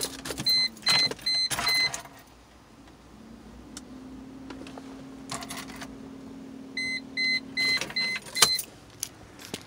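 Mercedes-Benz ML 350 warning chime beeping in short runs of evenly spaced high beeps, about three a second, near the start and again near the end, with the ignition on but the car not starting. A steady low hum runs through the middle, and a few sharp clicks sound now and then.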